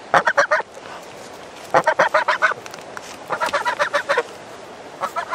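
Domestic white goose honking close up: four quick runs of short, rapid honks, roughly one run every second and a half.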